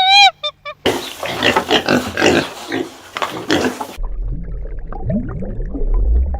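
A run of animal calls: a few short pitched calls in the first second, then a dense run of noisy calls for about three seconds, then low grunts over a deep rumble.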